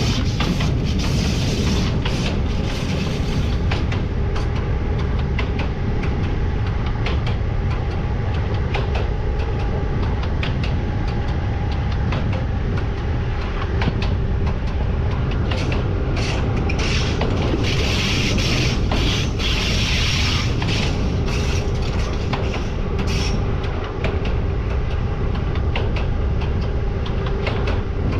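Siemens Vectron electric locomotive heading a heavy freight train, heard from its cab: a steady rumble of wheels on rail with frequent clicks and creaks and a faint steady hum. A hiss swells briefly about two-thirds of the way through.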